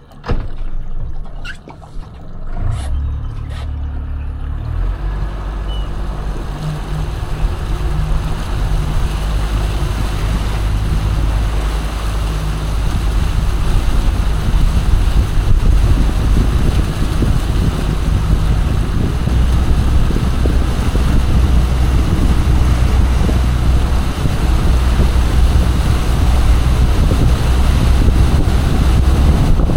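Motorboat engine pulling away and running underway, a steady low drone that builds over the first ten seconds or so and then holds, with wind and water rushing past.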